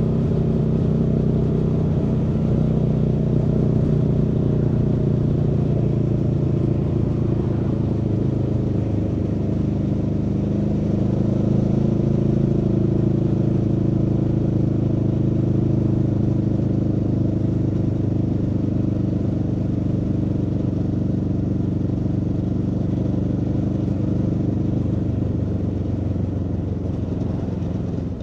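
Aprilia Tuono V4 motorcycle's V4 engine running steadily under way, its pitch dipping and shifting briefly about nine seconds in.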